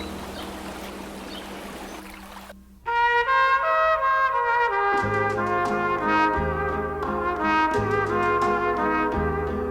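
Background music with a brass melody over a pulsing bass line, starting abruptly about three seconds in after a quieter stretch of steady hiss.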